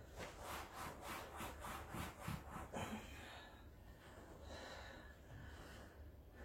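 Rapid back-and-forth rubbing or scraping strokes, about four a second, for the first three seconds, then fainter, slower rubbing.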